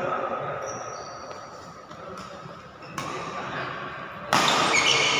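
Badminton rally on an indoor court: rackets striking the shuttlecock and players' shoes squeaking on the court floor. The sound gets suddenly much louder about four seconds in.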